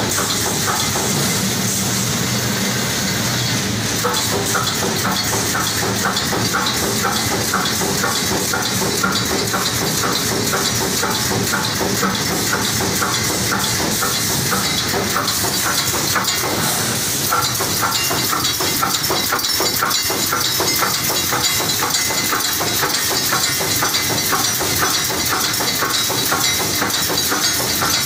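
Pneumatic wire-mesh welding machine for chicken cages running in automatic production: a steady hiss of compressed air over a rapid, regular clacking as it cycles.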